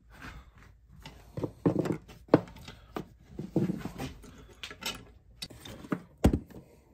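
Handling noises from fitting a tang bolt into a wooden rifle stock: scattered clicks, scrapes and knocks of metal on wood. The sharpest knock comes about two and a half seconds in and another about six seconds in.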